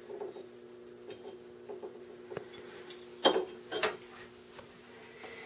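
Metal kitchen utensils clinking and tapping as they are handled and set down on the counter, with two louder clatters about three and a half seconds in. A faint steady hum runs underneath.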